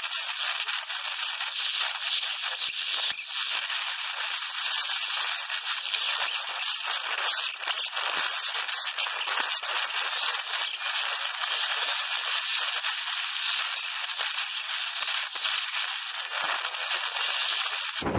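Sped-up running noise of a 7.5-inch-gauge ride-on miniature train on its track: the wheel and track clatter blurs into a dense, high-pitched rattle with no low end.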